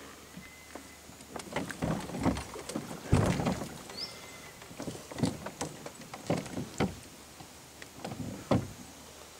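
A kayak being paddled: irregular knocks and splashes as the paddle dips and bumps against the hull, the loudest about three seconds in.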